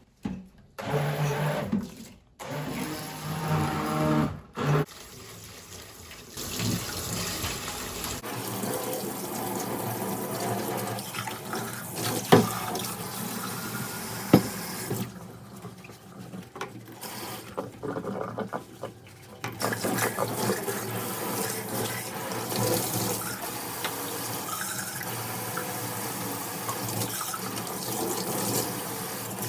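Water running from a tap and filling, in several short stretches broken by abrupt cuts, with two sharp clicks or knocks in the middle.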